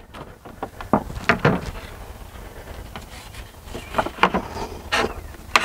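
Light knocks and clicks of a Trex railing bottom rail being handled and set into place between two posts, a few scattered taps over a low steady rumble.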